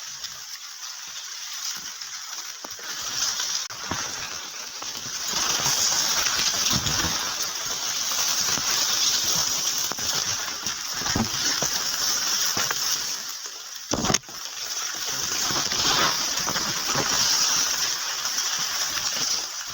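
Rushing water making a steady hiss that grows louder about five seconds in, with a single sharp click about fourteen seconds in.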